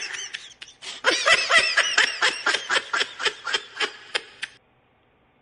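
A person laughing hard in a high-pitched run of repeated bursts, about four a second, with a short catch of breath about a second in. The laughter fades and cuts off suddenly near the end.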